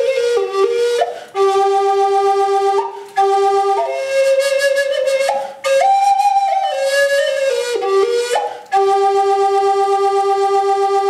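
Wooden Native American flute played solo: a slow melody of held notes stepping up and down, in phrases broken by short breaths. The last phrase settles on a long low note held with a slight pulsing waver.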